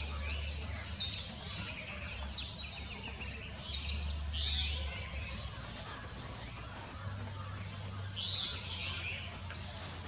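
Several birds calling in a tree: many short high chirps and notes throughout, with a few louder, longer calls about a second and a half, four and a half and eight and a half seconds in. A steady low hum lies underneath.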